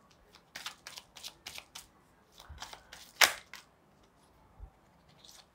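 Tarot cards being shuffled by hand: a quick run of short, soft card clicks, then a louder sharp click about three seconds in.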